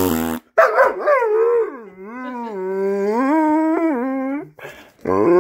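A short buzzy fart noise, then a large shaggy dog answering with one long howl that wavers up and down in pitch for about four seconds. Near the end the dog starts another howl.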